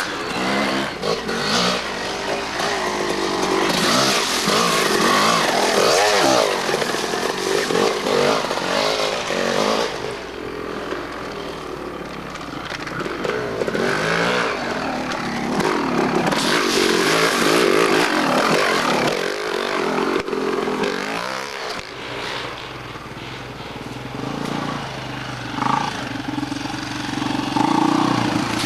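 Dirt bike engines revving up and down, the pitch rising and falling again and again as riders ride past, swelling louder several times.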